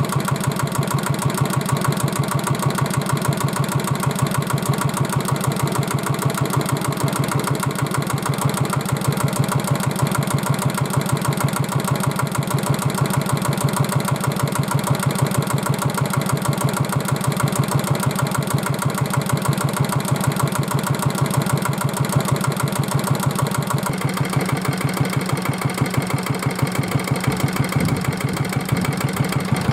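Kubota diesel engine running steadily at idle with an even, rapid beat of firing pulses, after the rainwater has been drained from its cylinder; the tone shifts slightly about 24 seconds in.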